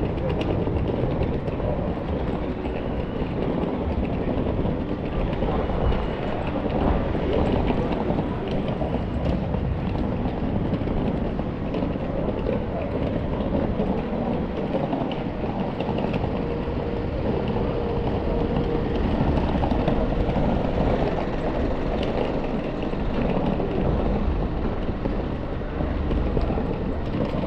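Steady city street noise of traffic: a continuous even rumble and hiss with no single event standing out.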